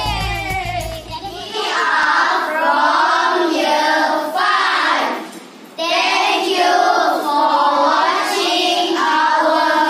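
A group of children singing together, unaccompanied, with a short break about five seconds in. Background music with a heavy bass ends about a second and a half in.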